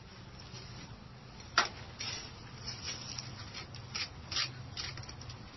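Scattered light clicks and scrapes from hand work at the base of a siding wall, with one sharper click about a second and a half in, over a low steady hum.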